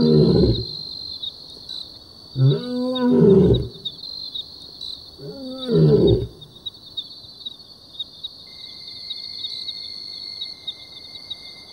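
Male lion calling: three long, arching calls about three seconds apart, over the steady chirping of crickets. After the third call only the insects are left.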